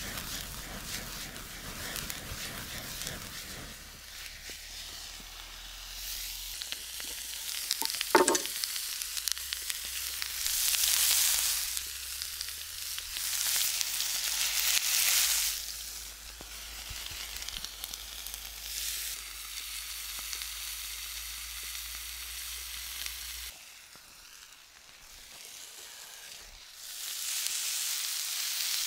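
Vegetables frying in oil in a frying pan over a wood fire, a steady sizzle that swells louder and falls back several times. A single sharp knock about eight seconds in.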